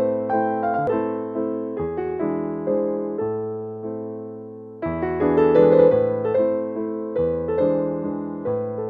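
Background piano music: a gentle keyboard melody over bass notes, with a louder phrase starting about five seconds in.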